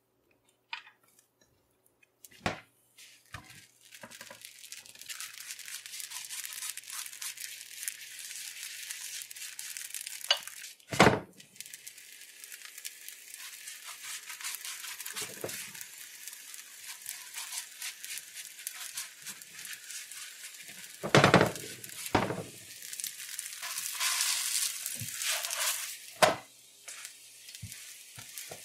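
Oil roti frying in a nonstick pan: a steady crackling sizzle of hot oil that starts a few seconds in, with several sharp knocks of utensils against the pan, two of them louder than the rest.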